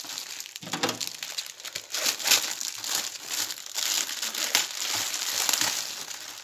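Plastic packaging crinkling and rustling in irregular crackles as hands handle it and cut it open with scissors.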